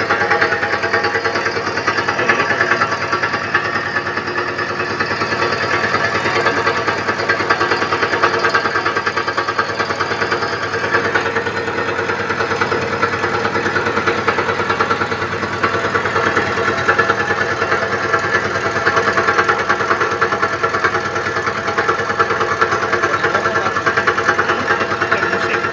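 Milling machine cutting, face-milling an angle plate flat: a steady machining noise with a fine, rapid chatter.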